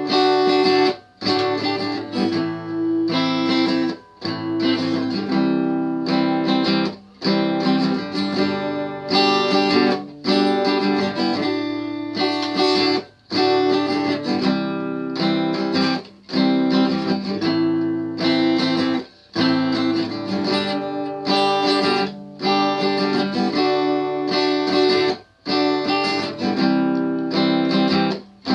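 A guitar playing chords with strumming, each chord ringing for a couple of seconds before a brief break.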